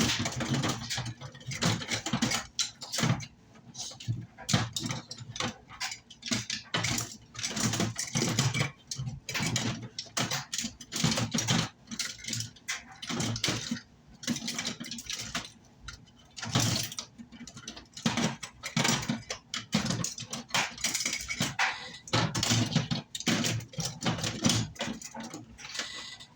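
Tools and small objects knocking and clattering irregularly on a workbench as someone rummages through them looking for a brush.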